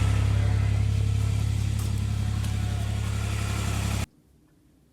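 Farm truck's engine running steadily as it is driven, a low drone with road and engine noise, cutting off abruptly about four seconds in.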